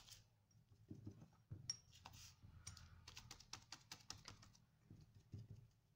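Faint quick taps and light crinkling of a sea sponge being dabbed into metallic paint on a plastic sheet, with a few soft thumps.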